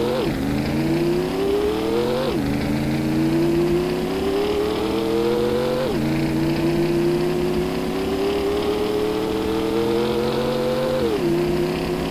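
Synthetic car acceleration sound effect: a looped car engine recording pitch-shifted in rising ramps that imitate a transmission's gear ratios. The pitch climbs, then drops sharply at each simulated shift, three times in all, and each gear lasts longer with a gentler rise than the one before.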